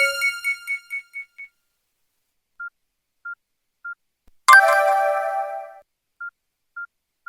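Nokia N95 ringtones playing. A melodic tone ends on a high note that repeats and fades. Then come three short single-pitch beeps, a bright chime about four and a half seconds in that dies away over a second, and three more beeps.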